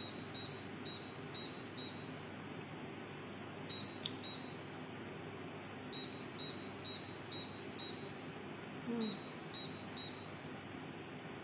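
Touch-control oven panel beeping with each tap as the cooking timer is stepped up to 30 minutes: short high beeps at one pitch, about fifteen in all, in quick runs of two to five.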